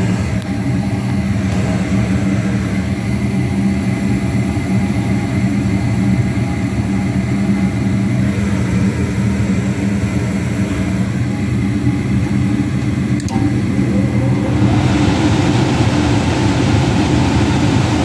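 Goodman gas furnace running steadily with the inducer motor and burners lit, a constant mechanical hum; a broader rushing noise rises about fifteen seconds in. The furnace is firing normally now that a replaced control board has restored 24 volts to the gas valve.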